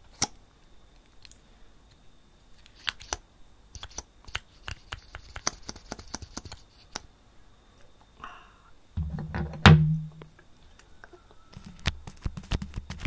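Close-miked ASMR handling sounds: scattered small clicks and taps on the microphone, then low rubbing against the microphone about nine seconds in with one sharp knock, and rubbing again near the end.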